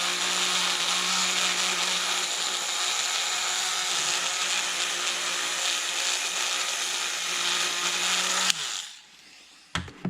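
Dremel rotary tool running steadily at high speed, scouring dried gasoline deposits off a pressure washer carburetor part. It switches off about eight and a half seconds in and winds down, followed by a couple of short knocks near the end.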